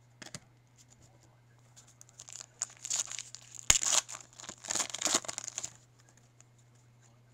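Foil wrapper of a Topps Chrome baseball card pack being torn open and crinkled by hand, a run of crackling rustle from about two seconds in to near six seconds, with one sharp snap in the middle.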